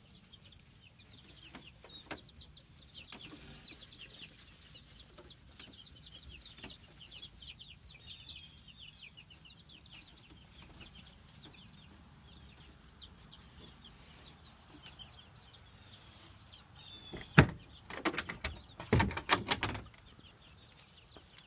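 Chicks peeping, with many short, high, falling peeps. Near the end there is a loud knock, then a couple of seconds of loud clattering.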